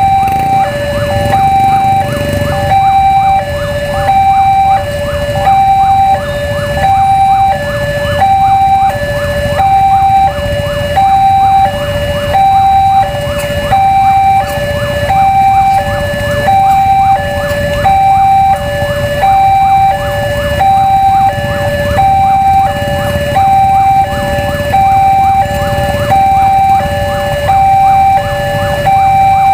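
Electronic warning alarm of a railway level crossing, sounding an even two-tone high-low signal about once a second that does not let up. It signals a train approaching and the crossing closed. A low rumble of waiting traffic runs underneath.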